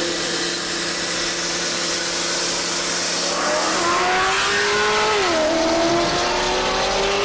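Twin-turbo Lamborghini Gallardo V10 heard from inside the cabin under hard acceleration. The engine note holds steady at first, then climbs from about three and a half seconds in. It drops quickly at a gearshift around five seconds in and climbs again.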